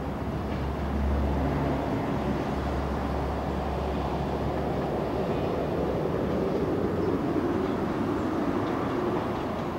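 Passenger train running slowly through a railway junction at a distance, a steady low rumble of wheels on track that grows somewhat fuller in the second half.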